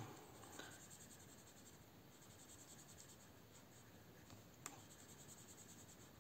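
Faint scratching of a marker tip colouring in small boxes on a paper card, with one light click about four and a half seconds in.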